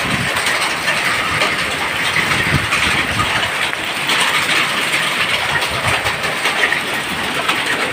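Heavy hail pelting down: a dense, steady clatter of many small hailstone impacts over a loud hiss of falling hail and rain.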